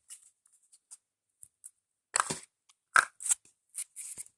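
Intermittent crinkling and rustling from a Play-Doh surprise being handled and opened by hand, with louder crackles about two and three seconds in.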